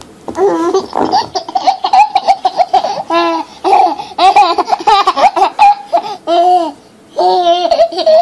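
Baby laughing in several high-pitched bouts of rapid, pulsing laughter, with short pauses between them.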